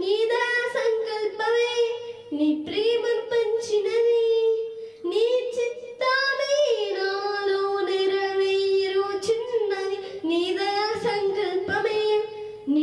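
A young girl singing a Telugu Christian devotional song solo into a microphone, with no instruments, in long held notes with short pauses for breath between phrases.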